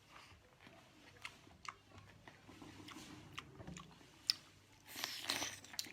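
Close mouth sounds of a person chewing and biting food: scattered soft wet clicks and smacks, thickening into a louder flurry about five seconds in.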